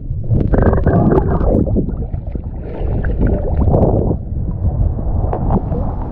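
River water splashing and gurgling around the camera as a snorkeller comes up from under the water and lifts a bottle out, with heavy rumble on the microphone and many small knocks.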